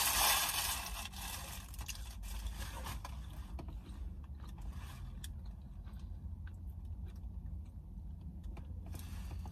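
A person biting into and chewing crunchy fried Taco Bell food close to the microphone: a loud crackling crunch in the first second, then scattered soft crunches and mouth clicks, over a steady low hum.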